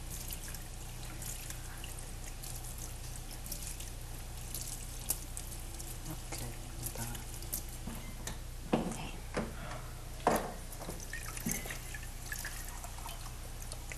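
Water dripping and trickling, as at a sink, with small ticks and a few louder soft knocks a little past halfway through, over a steady low hum.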